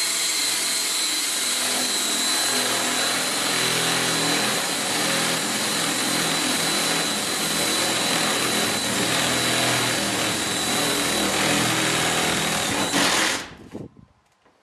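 Cordless DeWalt 18-volt drill running continuously as a long twist bit bores through the trailer's aluminum side skin, with a steady high whine. It stops suddenly about a second before the end.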